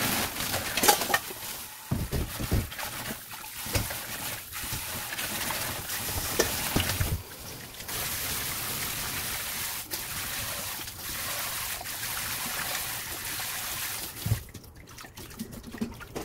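Tap water pouring over bean sprouts into a plastic basin, a steady rush of water with a few knocks as the sprouts and basin are handled. The rush stops near the end.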